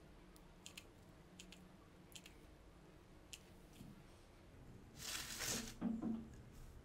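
Faint clicks from a hot glue gun's trigger as glue is pressed out, several in a row over the first few seconds. About five seconds in comes a short scrape, then two light knocks as the piece is handled and set down.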